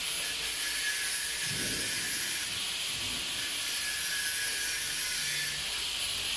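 Steady rushing noise with a faint high-pitched whine running through it, unchanging throughout.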